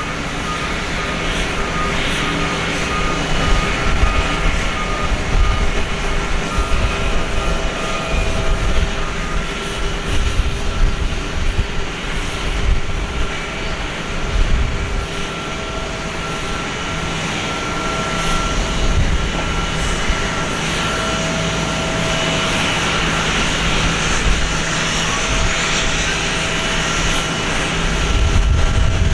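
Airbus A321 jet airliner during pushback: a steady jet whine made of several held tones over a low rumble, the rumble swelling a little near the end.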